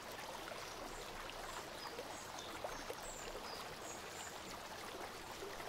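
Faint, steady background hiss with no distinct event, and a few faint, short high chirps scattered through it.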